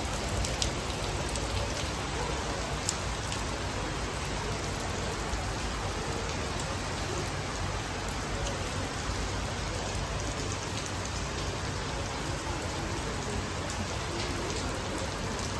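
Steady rain falling on a fabric tent canopy overhead, an even hiss with a few sharp drop clicks.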